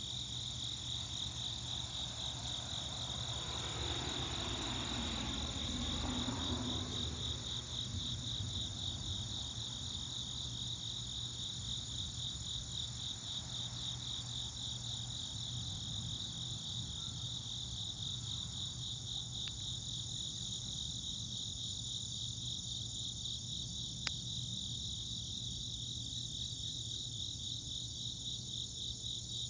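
Crickets chirping in a steady, evenly pulsing chorus over a low steady hum. A broad swell of noise rises and falls in pitch from about four to seven seconds in, and there is a single sharp click near the end.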